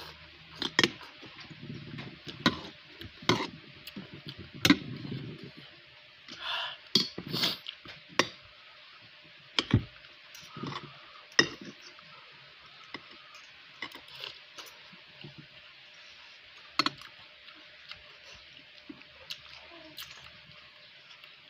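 Instant noodles being slurped and eaten, with a metal spoon and fork clinking against a ceramic bowl many times.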